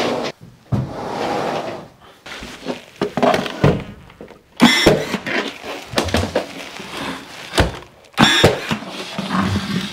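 Finishing nails being driven into quarter-round trim: a series of separate sharp knocks, the loudest a little before halfway and again past two-thirds through. A short rushing noise comes first.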